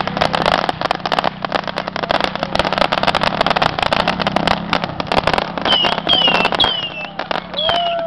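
Fireworks crackling in a rapid, dense stream over a motorcycle engine running steadily. From about six seconds in come several short, high, falling whistles.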